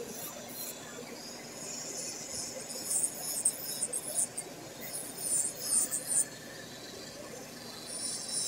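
Electric nail drill with a sanding-band bit whining at high speed against a long fingernail, with irregular louder grinding bursts from about three to six seconds in as the bit is pressed to the nail.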